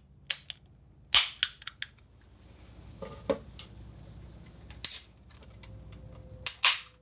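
About ten sharp clicks and taps at irregular intervals, the loudest about a second in and near the end.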